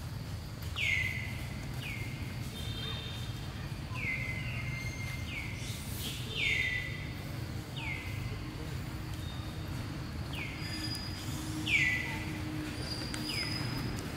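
A bird calling over and over: short high notes that each slide quickly down and level off, roughly one a second and some overlapping, over a steady low background rumble.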